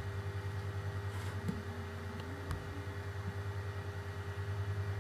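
Steady low mechanical hum with a fast, even pulse, carrying a few faint steady tones, and a few faint short clicks in the first half.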